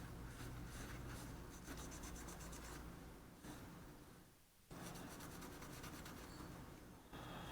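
Faint rapid scrubbing strokes on a circuit board as flux residue is cleaned off after levelling the solder pads, pausing briefly about halfway, over a low steady hum.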